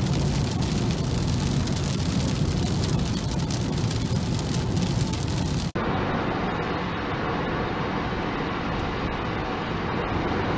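Steady tyre and road noise from inside a car driving on a wet road in rain, with raindrops pattering on the windshield. A little past halfway it breaks off abruptly into a duller stretch of the same steady road noise.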